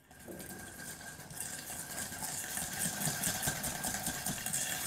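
Wire whisk beating eggs and sugar in a stainless steel bowl: rapid, even strokes of the wires against the metal, growing a little louder.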